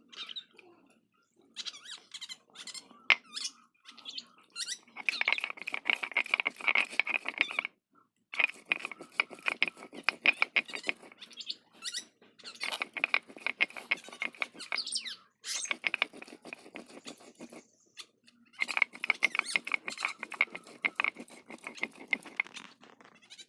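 Spices being ground by hand on a flat grinding stone with a stone roller (sil-batta). Stone rubs and grates on stone in rapid gritty strokes, in runs of a few seconds with short pauses between them.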